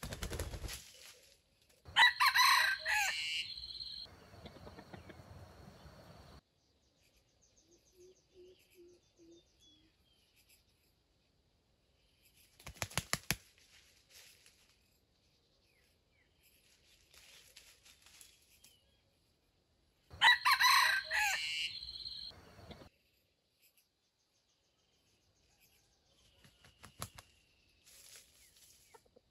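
Junglefowl rooster crowing loudly twice, about two seconds in and again about twenty seconds in, with bursts of wing flapping at the start and about thirteen seconds in.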